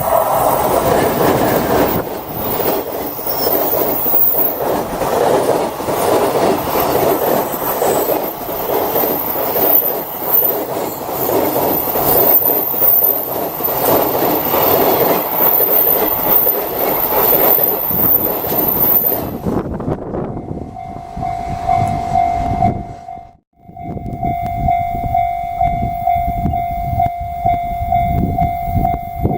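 A container freight train hauled by an EH500 electric locomotive runs past, its wagons' wheels clattering rhythmically over the rail joints. After an abrupt change about two-thirds of the way in, a level-crossing warning alarm rings with a steady tone over the rumble of a train.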